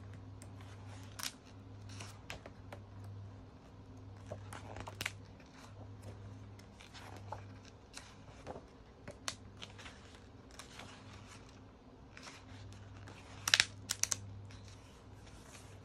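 Glossy magazine pages being turned and handled by hand: irregular paper rustles, flicks and snaps, the sharpest a quick pair near the end, over a faint low hum.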